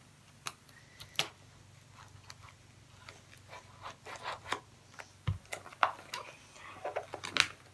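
Scattered light clicks, scrapes and rustles of cardboard and plastic packaging being handled and pried at while an RC car is worked out of its box, with one dull thump about five seconds in.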